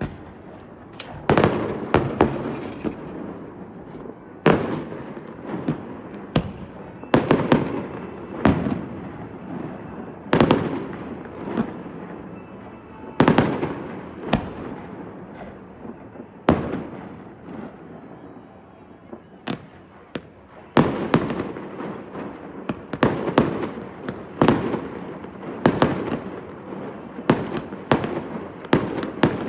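Aerial fireworks going off: a string of sharp bangs, each with a long rumbling echo, coming every second or two and crowding closer together towards the end.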